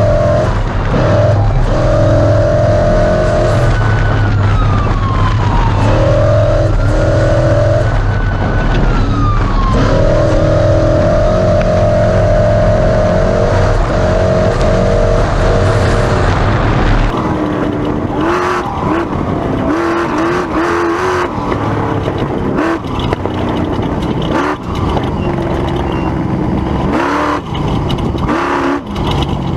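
Class 1450 Ford Ranger off-road race truck's engine running hard at steady high revs. About 17 s in the sound changes: the revs rise and fall repeatedly, with many short knocks and rattles as the truck is driven over rough ground.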